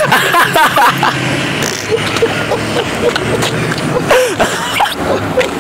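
Ford F350 dually's engine running hard as the truck spins donuts, its tyres scrabbling and spinning on packed snow and ice, with voices whooping over it.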